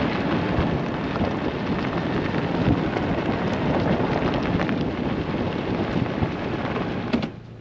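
A car rolling along a dirt road: a steady rumble of tyre and road noise that cuts off suddenly near the end.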